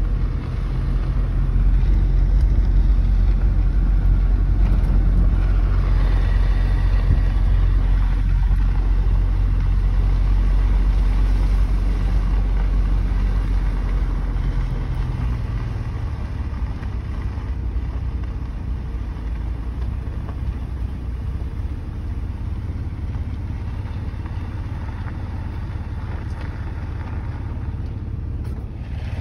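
Four-wheel drive's engine and tyres running on a dirt track, heard as a steady low rumble from inside the cabin. The rumble eases and gets somewhat quieter about halfway through.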